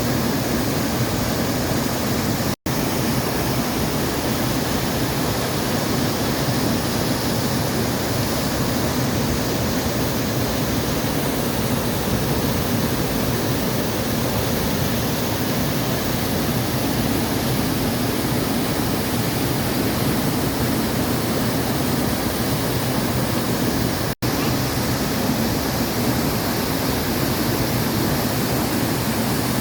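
Waterfall rushing steadily, an even roar of falling water, broken twice by a momentary dropout.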